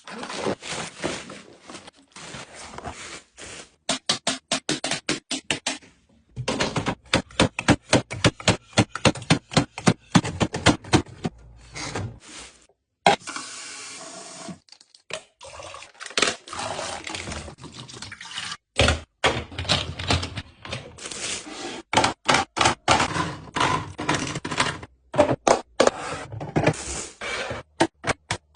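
Handling sounds of groceries and containers being put away: a dense, irregular run of clicks, knocks and rustles, with a few seconds of steady rushing noise about halfway through.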